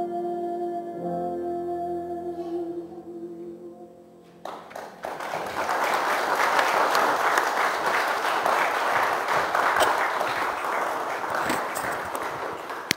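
The last held notes of a song sung to grand piano fade away, and about four and a half seconds in a congregation breaks into applause that lasts about eight seconds.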